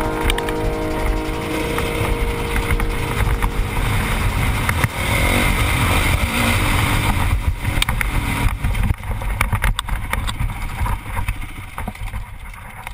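Honda CRF450R's four-stroke single-cylinder engine running on a dirt bike, heard from a helmet camera with wind buffeting the microphone and scattered knocks and rattles. It grows quieter in the last few seconds as the bike slows.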